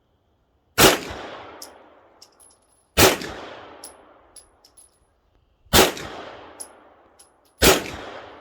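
Four 9mm Springfield Armory pistol shots, about two seconds apart. Each ends in a decaying echo, and short high ticks fall between the shots.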